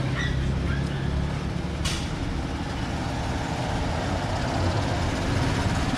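Small mini pickup truck's engine running at low speed as it drives up and pulls in close, with a short hiss about two seconds in.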